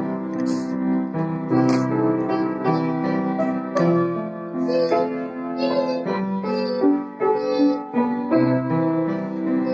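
Solo piano playing a slow hymn tune in sustained chords, a new chord or melody note struck about once a second.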